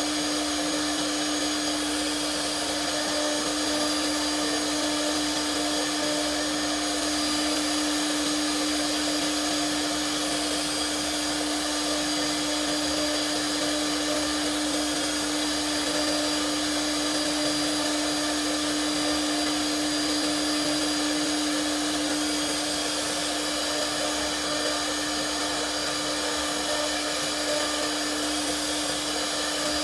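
Spindle motor of an RZ1325B CNC wood router running at a constant speed: one steady tone over a steady hiss, with no change in speed or load.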